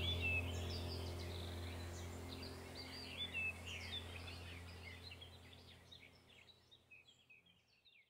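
Many small birds chirping and whistling in quick, overlapping calls, over a low steady hum. The whole ambience fades out steadily toward the end.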